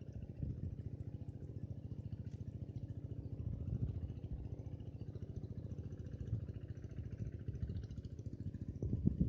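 A small engine running steadily, a low, fast, even pulsing throughout.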